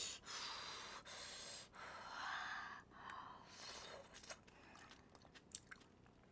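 Several short breathy puffs of air blown over a spoonful of thick kimchi-rice porridge, then a quiet mouthful with faint chewing and small mouth clicks.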